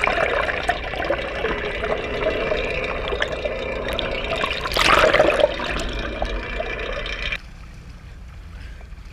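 Water rushing and bubbling, heard underwater through a camera housing, swelling louder about five seconds in and then dropping suddenly to a quieter hiss a little after seven seconds.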